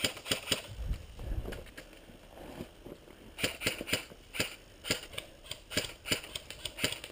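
Airsoft guns firing: single sharp snaps, a few in the first second, then a quick irregular run of about a dozen shots from about three and a half seconds in.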